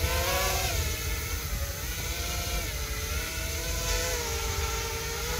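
FPV racing quadcopter in flight, its brushless motors and propellers whining with the pitch rising and falling as the throttle changes. The quad is flying normally.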